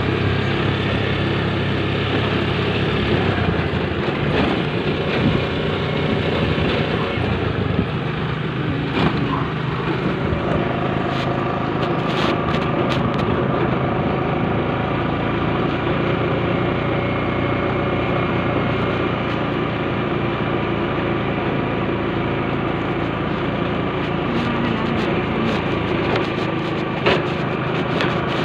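Vehicle engine running steadily while riding along, with road and wind noise and a few light knocks.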